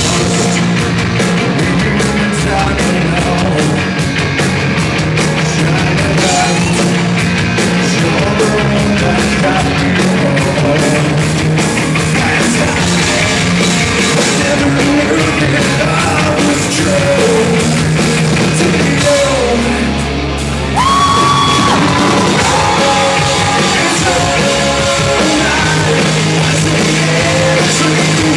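Live rock band playing loud: electric guitars, bass and a drum kit. The band thins out briefly about twenty seconds in, then comes back in full with a long held, bending note on top.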